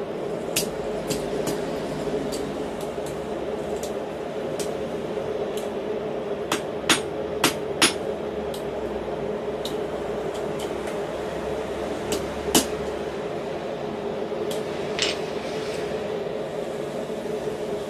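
Hand hammer striking red-hot mild steel fork tines held in tongs on a steel block: irregular, mostly light blows, with a few louder strikes in the middle, over a steady hum.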